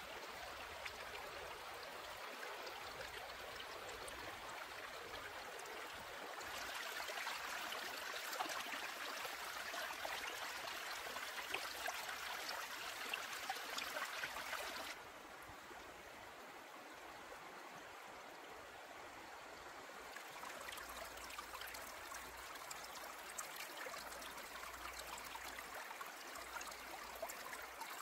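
Shallow stream running over rocks: a steady rush and trickle of water. It grows louder about a quarter of the way in and drops back to a softer flow just past the middle.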